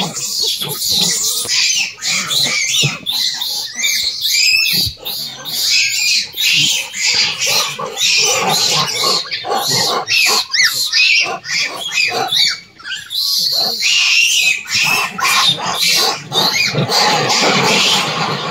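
A troop of rhesus macaques calling loudly, with many short, overlapping high squeals and shrieks and some harsher grunting calls.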